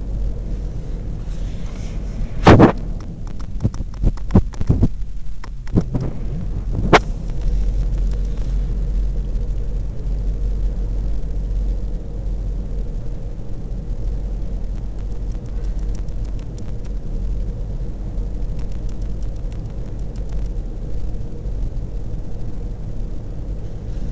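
Steady low rumble of a car driving on a paved road. Between about two and seven seconds in comes a cluster of sharp knocks and clicks, the first the loudest.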